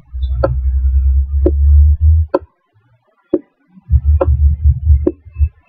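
Computer mouse clicking about once a second, six clicks in all, over a loud low rumble. The rumble stops about two seconds in and comes back in uneven pulses near the end.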